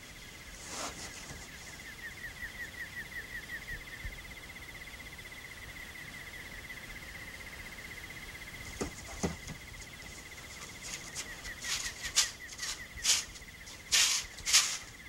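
A steady high-pitched insect trill that pulses rhythmically for a couple of seconds early on, joined in the second half by a run of sharp clicks and clatters.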